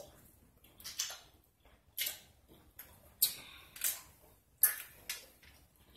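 Wet, irregular mouth smacks and clicks of someone chewing a large wad of bubble gum, about six sharp smacks spaced roughly a second apart.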